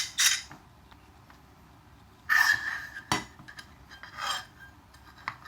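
Aluminium parts of an RC car repair stand clinking and scraping as it is assembled by hand, in short irregular scrapes with a sharp click about three seconds in and another near the end.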